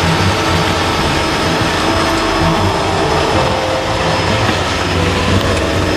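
Small high-wing propeller plane's cabin noise during landing: the engine and propeller running with a steady loud drone and rushing air.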